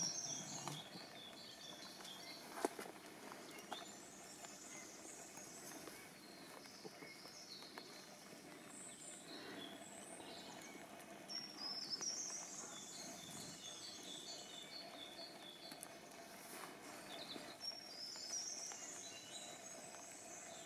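Songbirds singing over faint outdoor ambience, with phrases of short repeated chirps and rising high notes recurring every few seconds. A faint steady hum lies underneath, and a single sharp click sounds about two and a half seconds in.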